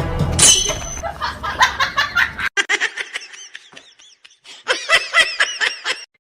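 Laughter in many short, quick bursts, over background music that cuts off about two and a half seconds in.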